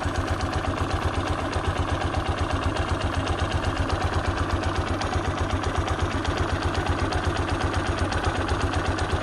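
Italika XM200 motorcycle's single-cylinder four-stroke engine idling steadily with an even, quick beat. A light valve tapping can be heard in it, which the owner takes as a sign the valves need adjusting.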